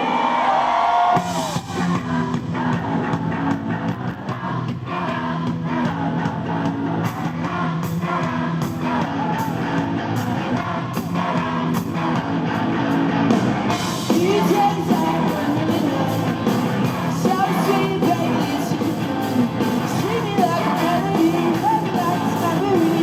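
Rock band playing live, with drums and guitar under singing.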